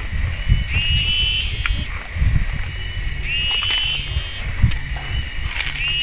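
An animal call, a short note that rises and then holds level, repeated about every two and a half seconds, over a steady high-pitched whine and a low rumble. Two sharp clicks in the second half.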